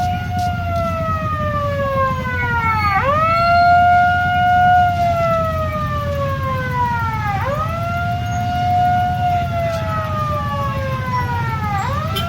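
A siren wailing in repeated cycles, over a steady low rumble: each call rises quickly in pitch, then slides slowly down, and starts again about every four and a half seconds.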